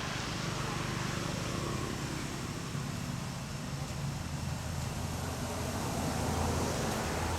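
Steady low engine hum over outdoor background noise, growing a little stronger in the second half.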